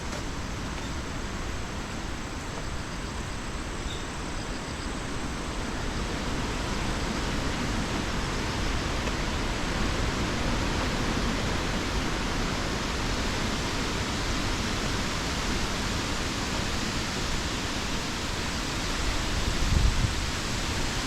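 Typhoon rain and wind: a steady hiss of rain with wind buffeting the microphone in the low range, and a stronger gust near the end.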